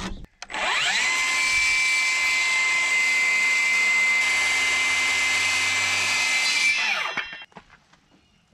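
Circular saw spinning up, cutting across the end of a rough-cut pine timber to square it, then winding down when the trigger is let go. A steady high whine runs through the cut of about six seconds.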